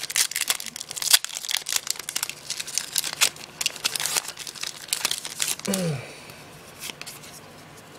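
Foil wrapper of a Yu-Gi-Oh! Hidden Arsenal 6 booster pack crinkling and tearing as hands rip it open and pull out the cards: a dense run of crackles that stops about six seconds in.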